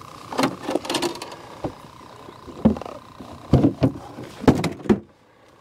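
Irregular knocks and thumps on the deck of an aluminum jon boat as a slippery catfish flops and is grabbed up, the loudest thumps in the second half, then the sound cuts off near the end.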